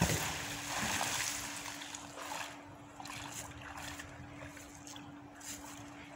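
A heavy magnet on a rope hitting the river with a sharp splash, the splash noise fading over about a second and a half. A faint steady hum runs underneath.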